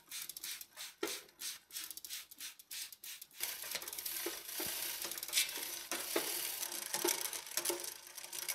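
A trigger spray bottle squirting onto a bicycle chain in quick repeated sprays, about three a second. About three seconds in it gives way to a rag rubbing along the chain with a steady scrubbing hiss as the crank is turned.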